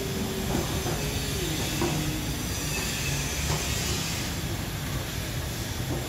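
Steady low mechanical rumble with a hiss over it.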